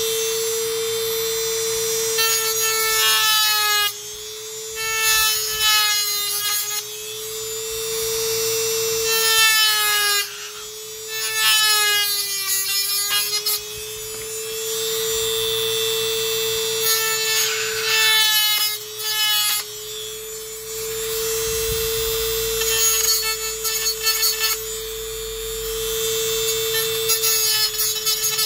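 A micro rotary tool with a cutting disc whines steadily while cutting a slot into a fan blade's hub. In several short bouts the disc bites into the part, adding a grinding rasp, and the motor's pitch dips briefly under the load.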